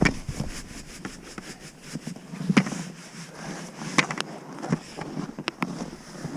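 A few scattered knocks and clicks, spaced irregularly about a second or more apart, over a steady background hiss.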